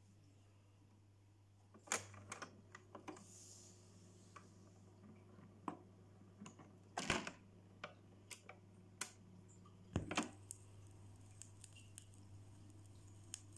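Philips portable record player with an automatic record changer running its change cycle after being switched to start: a steady low motor hum under a string of mechanical clicks and clunks, the loudest about 2, 7 and 10 seconds in.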